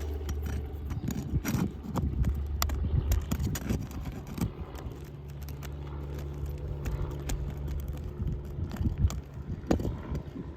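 Wind rumbling on the microphone, with scattered scrapes and knocks from asphalt shingles being pried up and handled on a roof. A faint steady hum runs through the middle stretch.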